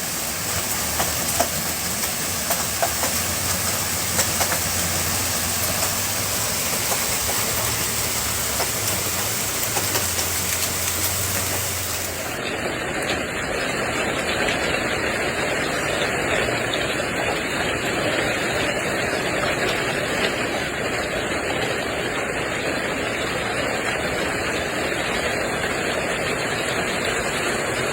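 Hail pelting down in a dense, steady rush of noise, with scattered sharp individual impacts in the first part. About twelve seconds in the sound cuts abruptly to a duller, deeper rush of falling hail and rain.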